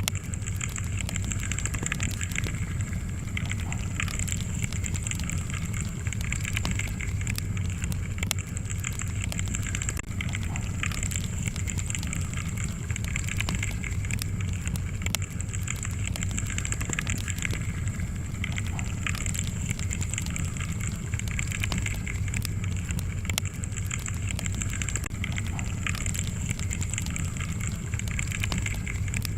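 Wood logs burning in a fireplace. A steady low rumble of flames is dotted with frequent sharp crackles and pops, over a thin steady hiss.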